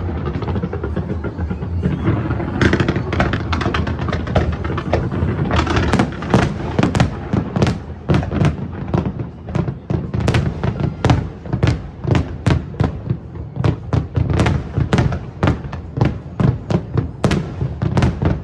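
Fireworks display: a rapid, continuous run of sharp bangs and cracks, several a second, over a steady low background.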